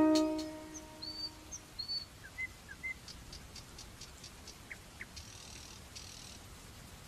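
Background electronic music winding down: a chord rings out and fades over the first second or so, then faint sparse chirps and ticks.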